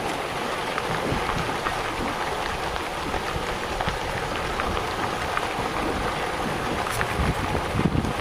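Many small splashes crackling without a break as a school of bluefish feeds at the surface, churning the water. Wind rumbles on the microphone underneath.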